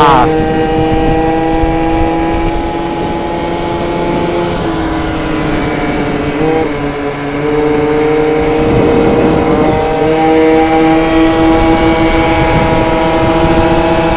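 Tuned 70cc two-stroke Yamaha Aerox scooter engine running at high revs at cruising speed, with a steady buzzing tone. The pitch sags slightly in the middle and climbs again about ten seconds in. Wind buffets the microphone, with a brief rush of wind noise just before the revs rise.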